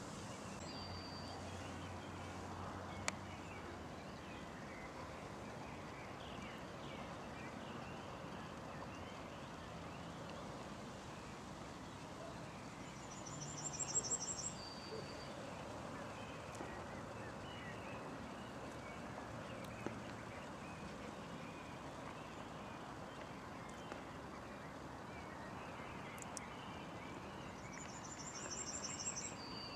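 Steady outdoor background noise with a small songbird singing twice: a quick series of very high notes followed by a short, slightly lower note, once about halfway through and again near the end.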